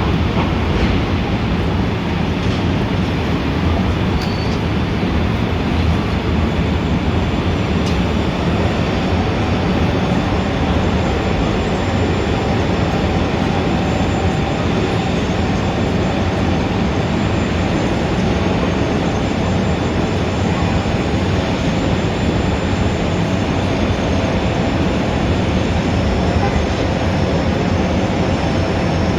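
Dense city traffic ambience: a steady, loud rumble of engines and tyres, heaviest in the low end, with no single event standing out.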